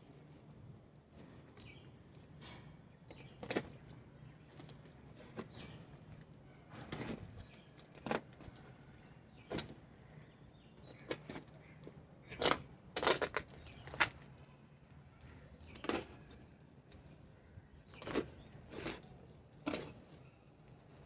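A knife cutting the packing tape on a stiff cardboard shipping tube, with the cardboard being handled: irregular sharp crackles, scrapes and taps, a dozen or so spread out with pauses between them.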